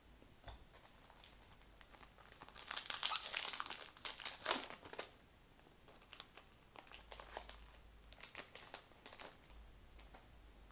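A foil booster pack wrapper of Yu-Gi-Oh! Maximum Gold cards being torn open and crinkled, in a dense burst of crackling a couple of seconds in, then lighter scattered rustles.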